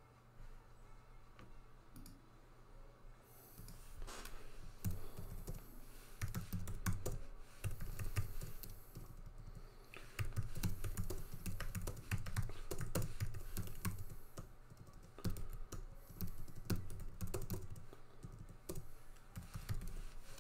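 Typing on a computer keyboard: irregular runs of key clicks, heavier from about four seconds in, over a low steady hum.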